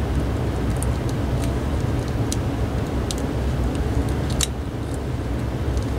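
A steady low hum of room noise with a few light clicks and ticks as the cordless handset's LCD screen and circuit board are handled and fitted together; the sharpest click comes a little past four seconds in.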